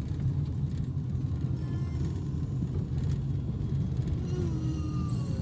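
Steady low rumble of a vehicle driving on the road: engine and road noise.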